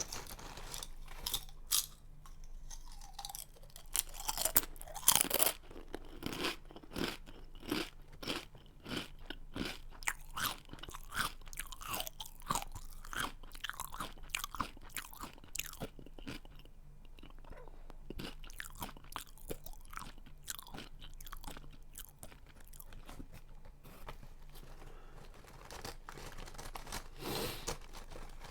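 A person chewing a crunchy snack close to the microphone: a fast run of crisp crunches that thins out to slower, softer chewing in the second half, with a louder flurry of crunching near the end.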